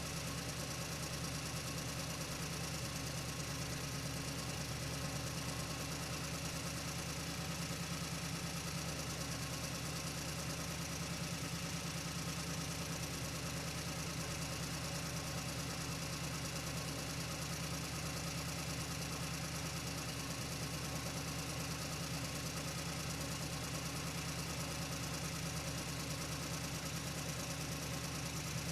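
Truck engine running at a steady speed, an even low drone that holds the same pitch throughout with no revving.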